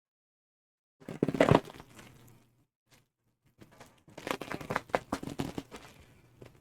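Plastic wrapping and packing tape on a shipping bag being ripped and torn open by hand, in two crackling bursts, the first about a second in and the second about four seconds in.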